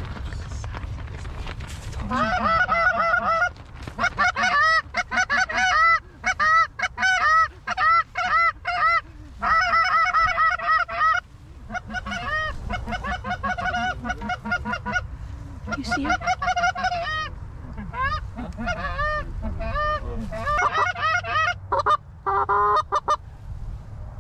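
Canada goose honks and clucks, loud and close, in rapid runs broken by short gaps, over a low rumble of wind.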